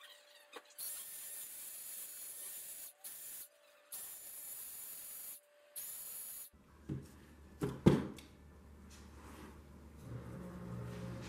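A cleaning spray hissing in four short bursts, one after another. A few clicks and one sharp knock, the loudest sound, follow about eight seconds in, and a low steady hum starts near the end.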